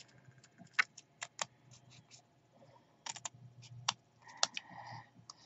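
Small scissors snipping through layered cardstock, trimming the edges of a label: a series of short, sharp snips, a few about a second in and more from about three seconds in.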